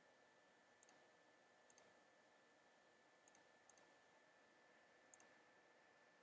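Faint computer mouse clicks against near silence: about five of them, spread out, each a quick double tick, as points of arcs are placed in a drawing program.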